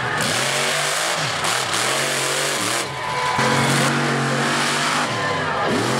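Predator monster truck's engine revving hard, its pitch rising and falling again and again as the truck accelerates and backs off.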